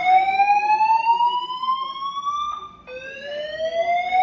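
Building fire alarm sounding a slow rising sweep tone. The sweep breaks off about two and a half seconds in, and after a short gap a new sweep starts again from low.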